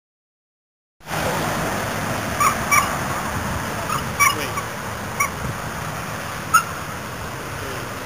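Steady traffic noise from a nearby road starts about a second in, with about six short, high chirps over it, some in quick pairs.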